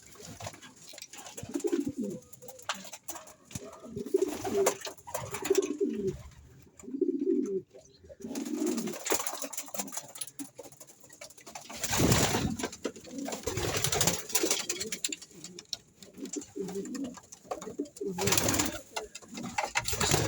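Domestic pigeons cooing, low calls repeating again and again. Two louder noisy bursts break in, about twelve seconds in and again near the end.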